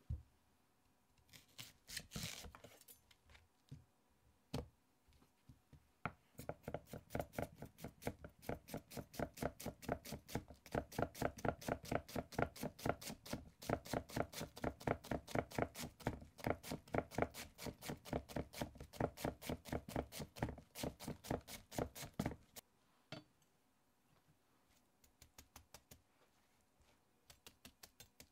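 Chef's knife slicing a peeled onion on a cutting board: a few single knocks, then a long run of quick, even strokes, about four a second, each blade tap striking the board, and a few lighter strokes near the end.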